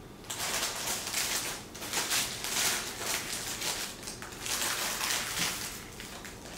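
Crinkling and rustling of a sandwich's paper wrapper, a string of short crackles, as the sandwich is unwrapped, handled and bitten into.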